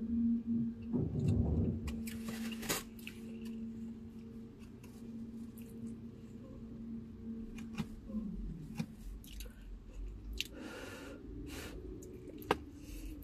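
Eating sounds: chewing with sharp clicks and rustles of utensils and a takeout container, over a steady hum that drops in pitch about two-thirds of the way through and gives way to a low rumble.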